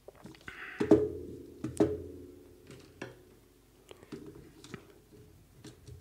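Plastic contactor and wire lead handled on a wooden desk while the lead is fitted to the coil terminal: a few sharp knocks with a short ringing, the loudest about a second in and again near two and three seconds, then lighter clicks and rustling.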